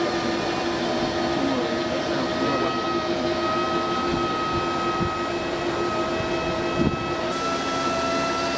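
Hybrid lobster boat underway: a steady mechanical hum with several steady whining tones, over a rush of water along the hull. The tones shift slightly in pitch about seven seconds in.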